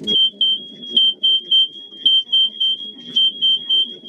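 Fire alarm sounding: a loud, high-pitched beep repeating in groups of three, the temporal-three evacuation pattern.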